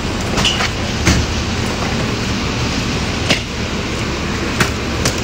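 Steady rumble of an idling airport shuttle bus under a covered bus lane, with suitcase wheels rolling on pavement and a handful of sharp knocks spread through.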